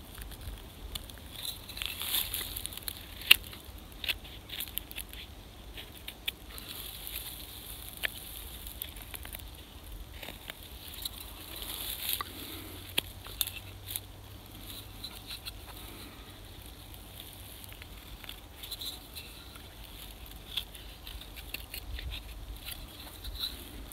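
Carving knife whittling a wooden blank by hand: short scraping, shaving cuts with irregular sharp clicks and crackles as chips come away, one click about three seconds in standing out.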